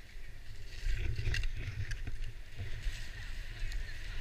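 Skis hissing and scraping over snow, with wind rumbling on the action camera's microphone and a few short knocks along the way.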